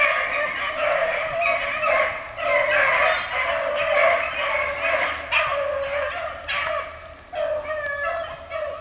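A pack of beagles baying together, several hounds giving voice at once in an unbroken chorus: the pack is running a rabbit's trail.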